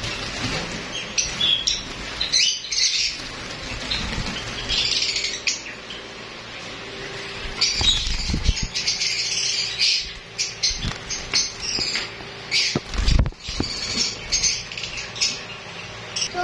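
A flock of small caged birds chirping busily in quick, short, high calls, with wings fluttering now and then.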